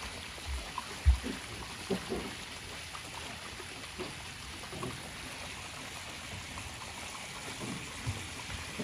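Water running off the end of a water slide and trickling and splashing into a spring pool, a steady gentle flow with small splashes. A brief low thump about a second in.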